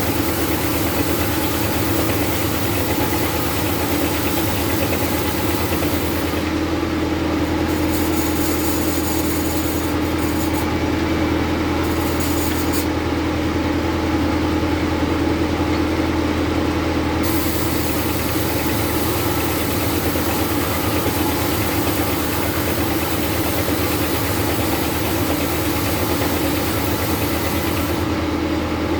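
Bandsaw mill running steadily while ripping a jengkol hardwood log, a constant low machine drone with a hiss on top. The hiss drops away for several seconds in the middle and returns.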